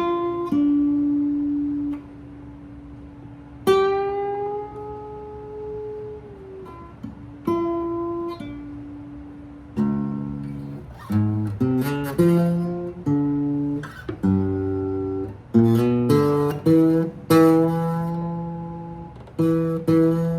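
Guitar music, played solo. First come slow, held notes, some sliding in pitch. From about halfway the playing turns to a busier run of plucked notes and chords.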